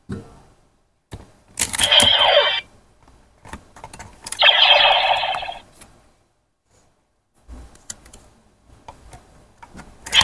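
A CSM Decadriver toy henshin belt being worked by hand: plastic clicks and knocks as the buckle is turned and a card is handled. Two short electronic sound effects play from the belt's speaker, about a second and a half in and again about four and a half seconds in.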